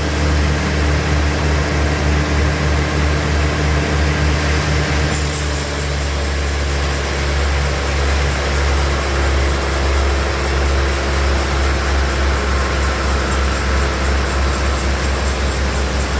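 Sawmill bandsaw machinery running with a steady low hum; about five seconds in the higher part of the sound changes and takes on a fast pulsing edge.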